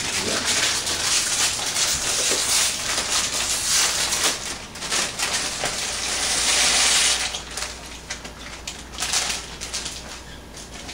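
Plastic bag of dry penne pasta crinkling and rustling as it is handled and torn open, a dense crackle that goes on for about seven seconds and then drops away.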